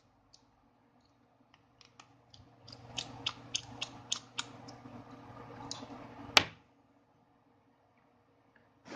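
Small, irregular clicks and light scraping of a precision screwdriver working the two small screws out of a mobile phone's plastic housing. One sharp click about six seconds in is the loudest sound.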